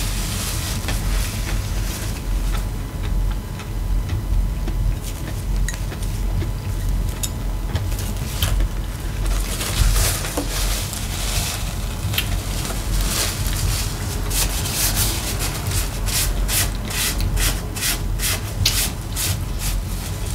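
A paper napkin rustling and rubbing as fingers are wiped, together with close-up chewing sounds. Near the end the crackles quicken to about three a second, over a steady low hum.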